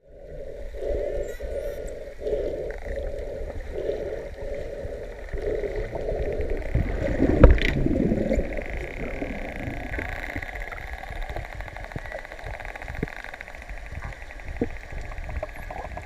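Underwater sound among a pod of spinner dolphins: a steady rumble and hiss of water, with a rhythmic swishing in the first few seconds and a loud thump about halfway. After the thump come a few seconds of fast clicking buzz from the dolphins.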